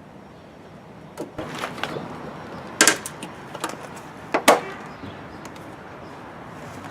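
A series of sharp clicks and knocks as the parts of a Jeep Wrangler's fuel filler door assembly are handled and fitted into place, with the two loudest knocks about three seconds and four and a half seconds in.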